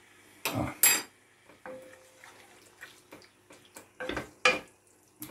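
A spoon clinking and scraping against a glass jar and the pan as thick curry sauce is scooped out into the pan. There are two sharp knocks in the first second, softer taps after that, and two more sharp knocks about four seconds in.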